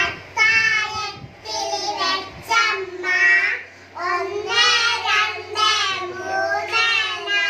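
Three young children singing a song together into a microphone, in short phrases with held notes and brief pauses for breath.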